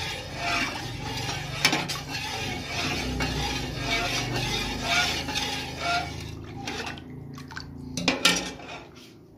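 Metal ladle stirring syrup into water in a metal pot: rhythmic swishing of the liquid with the ladle clinking against the pot, and a sharp knock on the pot under two seconds in. The stirring dies down about two-thirds of the way through, followed by two sharp knocks of the ladle on the pot.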